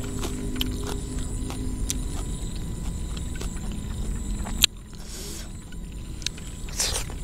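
Outdoor rice-field ambience: a steady low rumble with a thin, steady high whine over it. Scattered sharp clicks run through it, the loudest about four and a half seconds in, and there are a couple of brief hissy rustles near the end.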